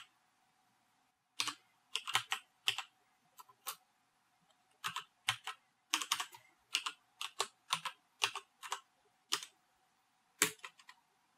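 Keystrokes on a computer keyboard typing a short search phrase: separate clicks at an uneven pace, with one louder keystroke near the end.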